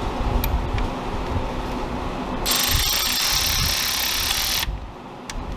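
A ratchet with a long extension turning a bolt on the intake manifold runner control stepper motor. After a few light clicks, a spell of rapid, hissing ratcheting begins about two and a half seconds in and cuts off sharply near the end.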